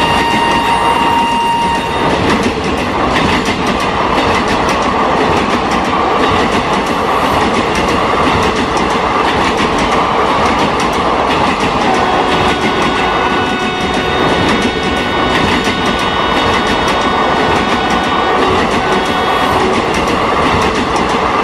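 HO scale model train, a WAP-7 locomotive model hauling LHB coach models, running steadily along the track with a continuous rolling rumble and rail clatter. A thin steady whine joins it for several seconds around the middle.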